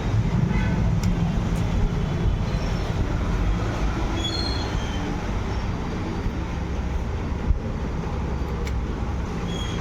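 Scooter's electric self-start motor, wired directly to a battery for a test, running steadily. There is a single knock near the end.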